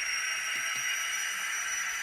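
The DCC sound decoder of an N gauge Class 56 model diesel locomotive, playing its diesel engine sound steadily through the model's tiny speaker. The sound is thin, with little bass, and carries a faint high whine that rises slightly.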